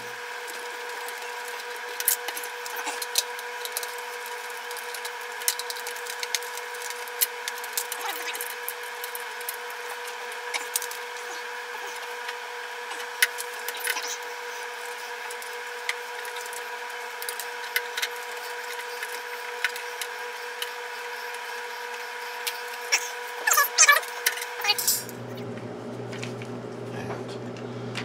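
Hand screwdriver working screws out of a gas water heater's metal burner access cover: scattered small metal clicks and taps over a steady hum, with a quick run of louder clicks and squeaks near the end.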